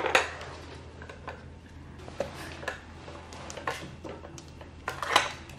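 Chihuahua pawing and nosing the plastic pieces of a Trixie Flip Board dog puzzle toy: light, irregular plastic clicks and knocks, the loudest near the start and again near the end.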